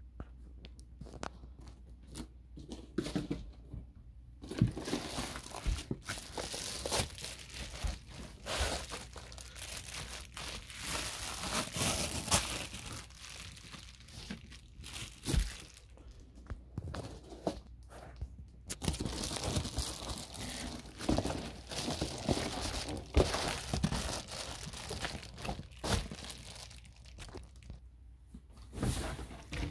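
Foil-faced bubble insulation crinkling and rustling as it is unrolled and handled, starting about four seconds in and pausing briefly now and then, with some sharp clicks and knocks.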